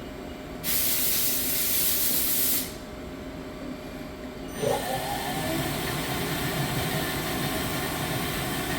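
A hiss lasting about two seconds, then the spindle of a 2008 Doosan Lynx 220G CNC lathe spins up with a brief rising whine and runs at a steady speed during a spindle speed test.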